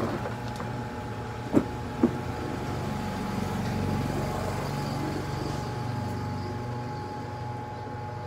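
Two sharp knocks, about a second and a half and two seconds in, over a low steady hum that swells in the middle and then eases off.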